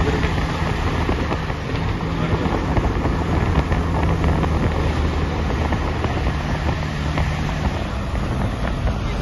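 Steady road and wind noise from a moving car, with a low, even hum from the car underneath it.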